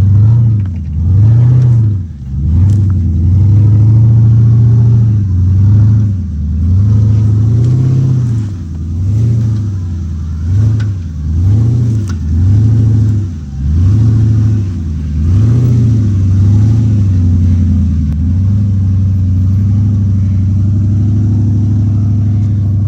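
A lifted off-road SUV's engine revving up and falling back again and again under load as it climbs a steep dirt hill, then holding a steady pitch near the end.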